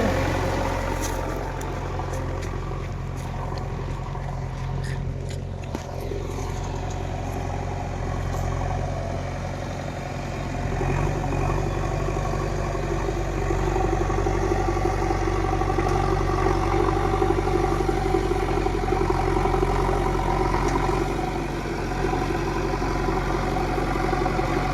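JCB digger's diesel engine running steadily, getting louder with a higher note about eleven seconds in. Light clicks and clatter come through over the first several seconds.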